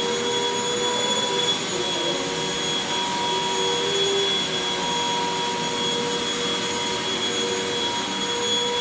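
Vacuum cleaner running steadily: a motor whine with several high held tones over a constant rushing hiss.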